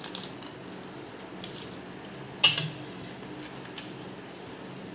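Boiled macaroni and its cooking water tipped from a steel pot into a perforated stainless-steel colander, the water draining through, with a sharp metal clank about halfway through.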